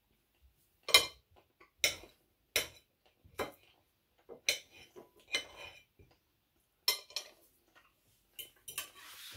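Knife cutting surimi on a ceramic plate: the blade clinks and scrapes against the plate in a series of short, separate strokes, about one a second.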